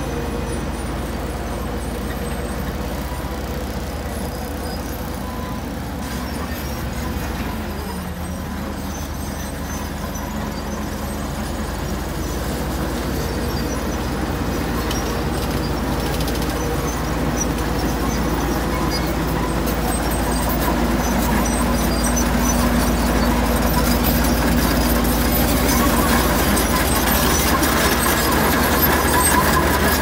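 Heavy diesel construction machinery running steadily with a low rumble, growing louder through the second half.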